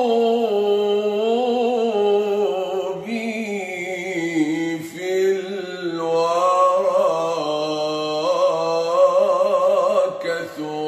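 A man singing an unaccompanied Islamic ibtihal solo: one long melismatic phrase with no words, the voice wavering and ornamenting the melody, shifting higher about six seconds in.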